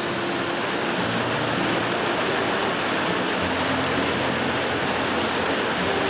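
Steady rushing of a rocky stream and small waterfall, an even hiss of flowing water.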